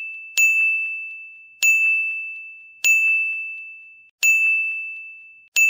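A bright single-pitched ding, an added editing sound effect, struck five times about every second and a quarter, each ring fading away before the next.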